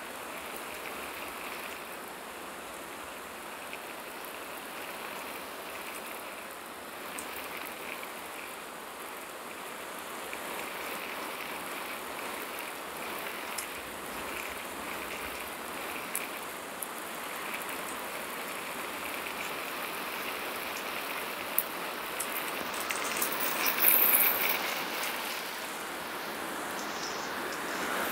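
Water spraying from a garden hose nozzle and pattering down on grass and planted buckets, a steady rain-like hiss. It gets louder for a couple of seconds near the end.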